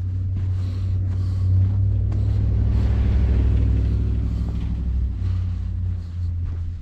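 A motor vehicle driving past on a snowy street: a low engine rumble that swells, peaks about halfway through with a hiss of tyres, then fades.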